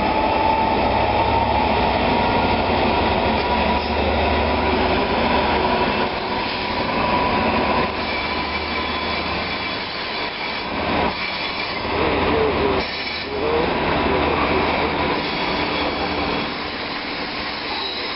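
GBRf Class 66 diesel-electric locomotive passing close by at speed, its EMD two-stroke V12 engine rumbling, followed by container flat wagons rolling past with steady wheel-on-rail noise. The engine's low rumble fades after about six seconds as the wagons take over.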